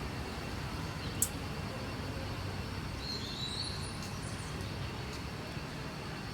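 Steady outdoor background noise, with a short high bird call about three seconds in and a single sharp click just after one second.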